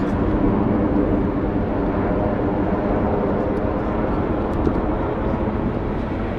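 Steady engine noise from a formation of jet aircraft flying an aerobatic loop with smoke trails, heard from the ground.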